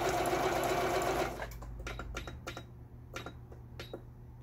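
Singer Fashion Mate 7256 computerized sewing machine running a test stitch for about a second, then stopping. After it stop, about seven sharp clicks come in quick succession as the stitch-selection buttons on its panel are pressed to step to another stitch pattern.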